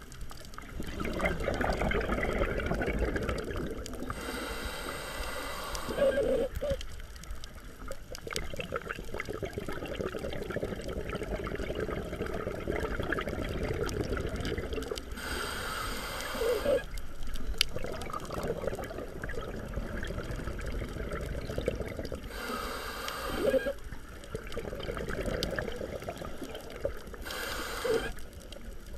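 Scuba diver breathing through a regulator underwater: four short hissing inhales, each followed by a long stretch of bubbling, gurgling exhale.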